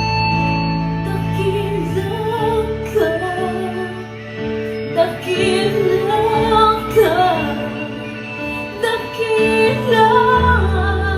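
Music: a woman singing a slow melody over sustained instrumental accompaniment.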